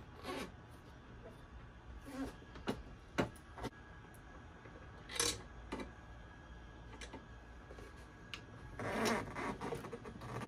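Quiet handling noise from a Honda Helix scooter's luggage rack being set in place: scattered light clicks and knocks, with two short scrapes, one about five seconds in and one about nine seconds in.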